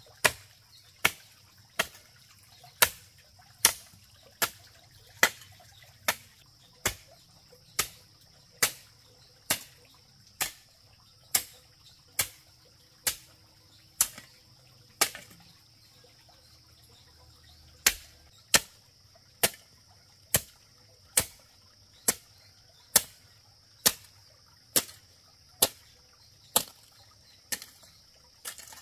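A hand tool striking repeatedly and sharply, about one blow every 0.8 seconds, pausing for about two seconds midway before the blows resume.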